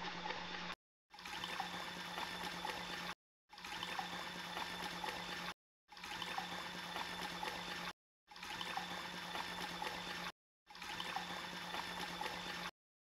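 Small portable top-loading washing machine running: water churning in the tub over a steady motor hum. The sound comes in stretches of about two seconds, each broken off by a short dead silence.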